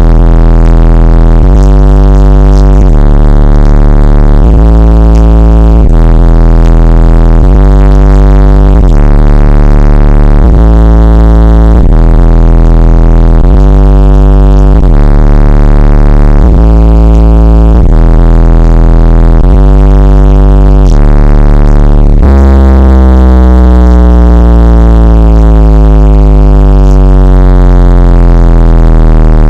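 Car subwoofers playing an electronic bass track from a bass-competition CD at very high level: deep bass notes stepping between pitches about once a second. About 22 s in, the bass holds one low note while gliding tones fall above it.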